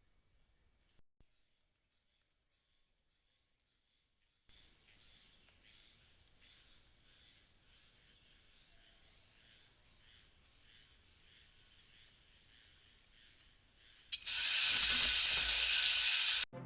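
Night insects, crickets, trilling in a high steady drone, with a pulsing chirping joining in about four seconds in. Near the end a loud hiss lasting about two seconds cuts in and then stops suddenly.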